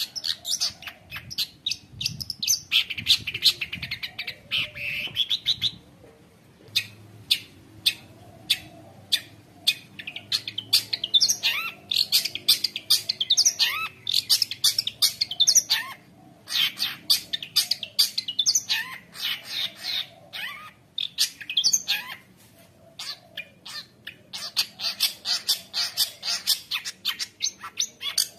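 Long-tailed shrike (cendet) singing a fast, chattering song of sharp, rapidly repeated notes and short rising whistles, filled with imitations of other birds' calls, with brief pauses every several seconds.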